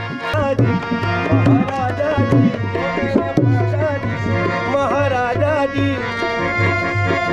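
A man singing, his voice sliding and wavering around the notes, over a harmonium's steady reedy chords, with a dholak hand drum keeping a regular beat.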